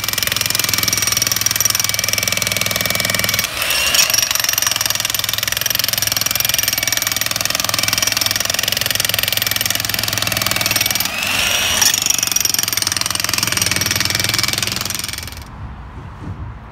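Corded electric demolition hammer (jackhammer) chiselling into hard, compacted ground to break open a fence post hole. It runs steadily and stops near the end.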